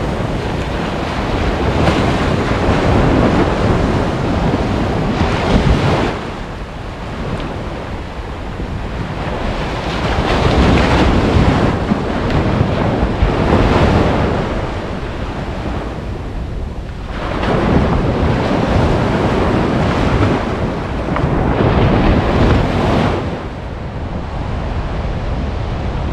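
Small surf breaking and washing up a sandy beach, swelling and fading every few seconds, with wind buffeting the microphone.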